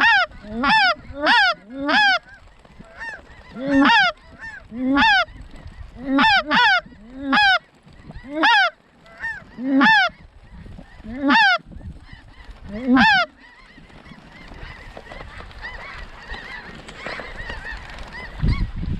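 Snow goose honking: loud, high calls repeated about once or twice a second, stopping about 13 seconds in, after which only a fainter, steady chatter of a distant flock remains.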